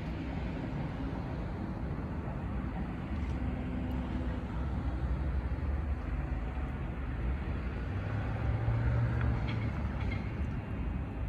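Steady low rumble of vehicle traffic. A low engine hum swells and fades near the end, as a vehicle passes.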